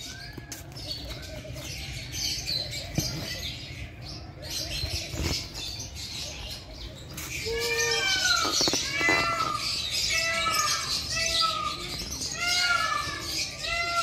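A flock of lovebirds chirping and chattering in an aviary. From about halfway, louder short squawking calls come in quick runs over the chatter.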